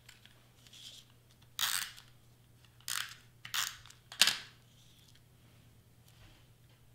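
Double-sided tape runner drawn across a small cardstock piece in four short strokes between about one and a half and four and a half seconds in; the last stroke is the loudest.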